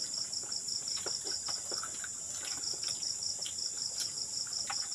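Night insects calling, crickets or katydids: a steady high trill under a rapidly pulsing high chirp, about five pulses a second, which pauses briefly midway. Faint clicks and taps sound here and there.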